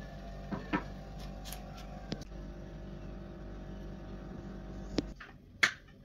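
A steady low hum that cuts off suddenly about five seconds in, with a few light knocks and clicks over it, then a sharp clink near the end as a spoon and plate of cream filling are handled.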